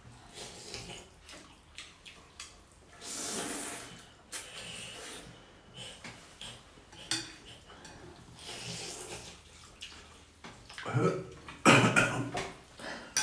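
Noodle soup being eaten: slurps of noodles and broth, with spoons and forks clinking against ceramic bowls. The loudest sounds come about eleven seconds in.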